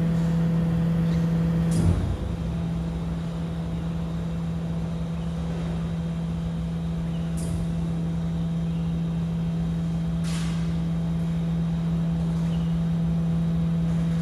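Rubbish compactor truck standing with its engine running at a steady drone. Short hisses of air come about two seconds in and again around ten seconds in.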